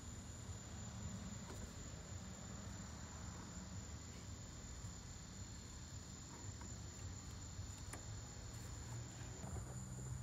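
Faint steady background hiss and low rumble, with a thin, steady high-pitched whine throughout and a few faint clicks.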